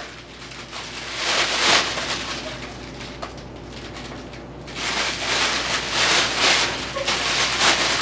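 A Tibetan Terrier puppy splashing and lapping at his water bowl while inside a fabric play tunnel, in noisy wet bursts: a short one about a second in, then a longer run from about halfway on.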